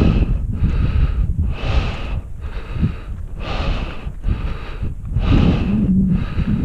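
A hiker's heavy, rapid breathing from the exertion of climbing a steep granite slope, a little more than one breath a second, over a low wind rumble on the microphone.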